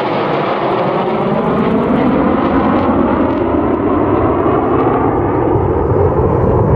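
Loud, steady jet roar from a formation of an F-22 Raptor, an F-35A and an F-86 Sabre flying past, its tone slowly sweeping as the aircraft move across.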